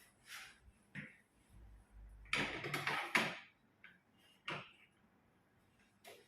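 Chiropractic treatment table being moved for traction: a series of irregular mechanical knocks and clicks, loudest about two to three seconds in.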